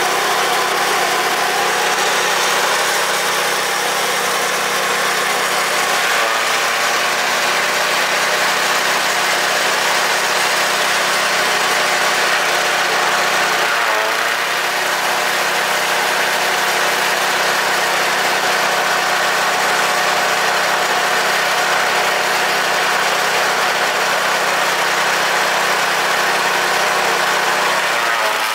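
A Realish RAPL-CC-9ZP-1.0 chaff cutter running steadily, its four rotating blades chopping green stalks fed into the hopper into short fodder.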